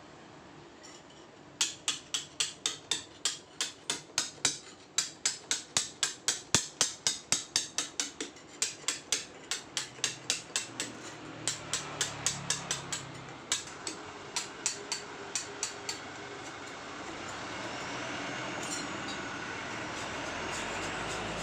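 Hand hammer striking a chisel into paras Jogja stone in a quick, even rhythm of about three blows a second, with a brief pause partway. About sixteen seconds in, the blows stop and a steady scraping of the stone surface takes over.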